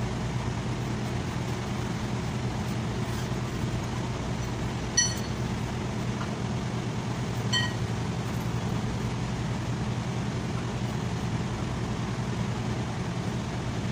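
Two sharp metal clinks, about two and a half seconds apart, each ringing briefly, as the truck's front wheel hub and drum are rocked off the spindle by hand. A steady low hum runs underneath.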